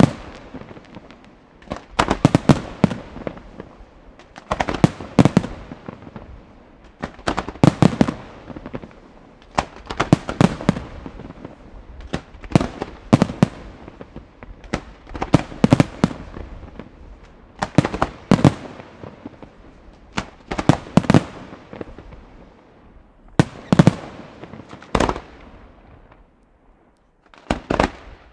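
Aerial firework shells bursting in volleys of several sharp bangs at a time, a new volley about every two and a half seconds.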